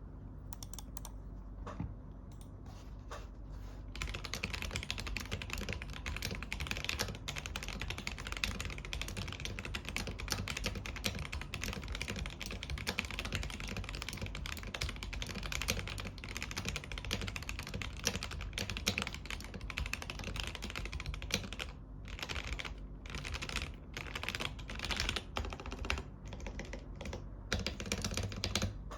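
Typing on a mechanical keyboard fitted with Akko Jelly White linear switches. It starts with a few separate keystrokes, runs as fast continuous typing from about four seconds in, and breaks into shorter bursts with brief pauses over the last several seconds.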